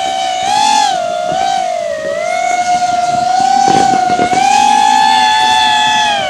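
FPV racing quadcopter's brushless motors whining, the pitch rising and dipping with the throttle and falling away near the end. A short patch of crackling comes about four seconds in.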